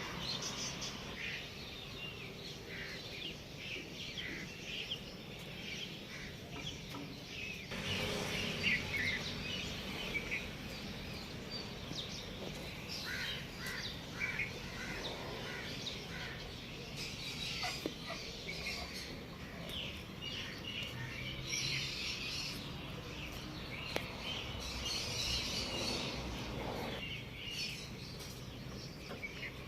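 Birds chirping and calling in short, high notes, scattered irregularly over a steady background noise.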